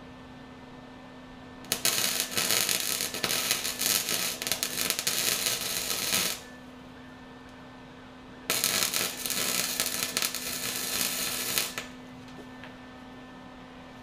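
Wire-feed welder laying two beads on steel, a dense, loud crackle lasting about four and a half seconds, then a second of about three seconds after a short pause, over a steady low hum.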